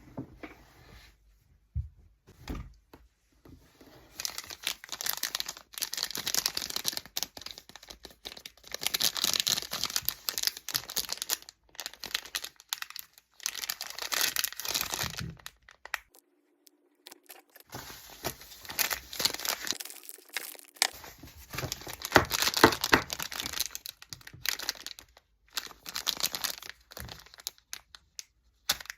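A crinkly food wrapper being handled and torn open, crackling in long bursts with a few short pauses.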